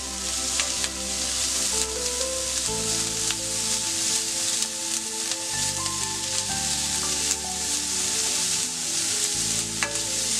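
Chopped onions sizzling in hot coconut oil in an aluminium kadai, sautéing toward golden, as a slotted spatula stirs them with a few sharp clicks against the pan. Background music with sustained notes plays underneath.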